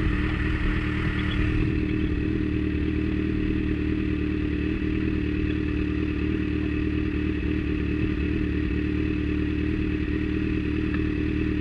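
Kawasaki motorcycle engine idling steadily.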